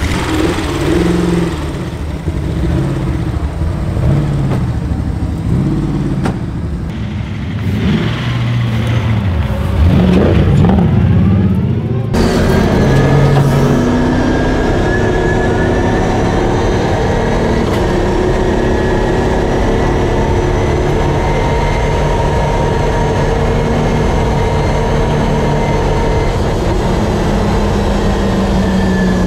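LS V8 engine of a Mazda RX-7 race car revving, its pitch rising and falling as the car moves off. About twelve seconds in, the sound switches abruptly to inside the cabin, where the V8 runs loud and fairly steady at speed on the track.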